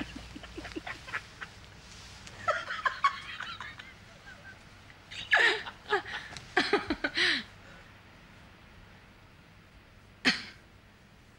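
People giggling and shrieking with laughter in short breathy bursts, dying away after about eight seconds, then one sharp outburst near the end.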